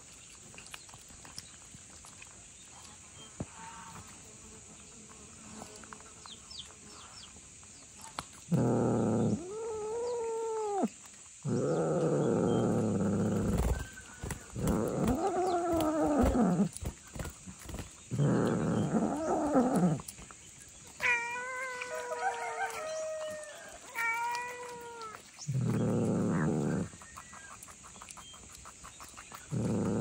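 A cat meowing: after a quiet stretch, about seven long meows follow one another, some rising then falling in pitch.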